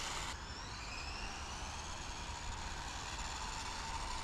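WPL D32 RC kei truck's small electric motor and gears whining faintly and high as it drives off at its slowest speed setting, the whine drifting slightly in pitch, over a low rumble of wind on the microphone.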